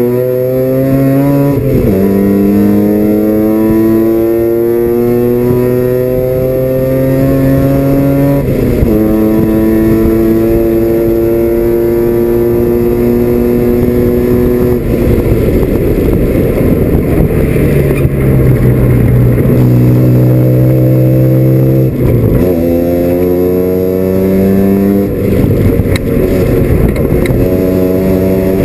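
Mazda RX-7 FC's 13B two-rotor rotary engine at race pace, heard inside the cabin: its note climbs and drops sharply at each upshift, holds steady for several seconds, turns rough and unsteady about halfway through, then settles low and climbs through the gears again with two more shifts.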